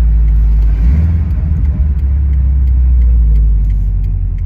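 2008 Subaru WRX hatchback's turbocharged EJ257 flat-four engine and road noise heard from inside the cabin while driving: a loud, low, steady drone that shifts about a second in and eases off near the end.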